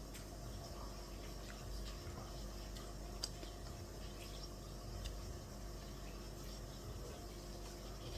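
Steady low room hum with a few faint short clicks, the clearest about three seconds in.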